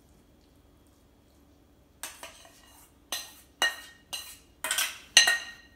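A metal spoon knocking and scraping cooked millet out of a stainless steel saucepan onto plates: about seven sharp, ringing clinks, starting about two seconds in.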